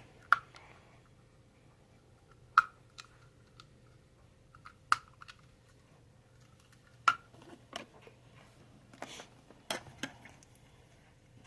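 Hand tools being handled: sharp metal clicks and knocks every two seconds or so, with fainter ticks between them and light rustling near the end.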